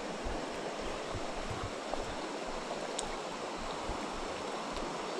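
Shallow creek water flowing steadily, with a faint click about three seconds in.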